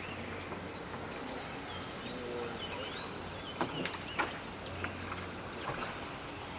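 Birds chirping over a faint low hum from the small boat's motor as it moves through floodwater, with two sharp knocks a little past the middle.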